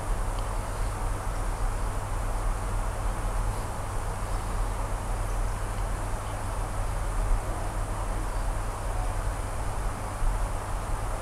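Aquarium equipment humming steadily, a low electrical hum under a constant even hiss.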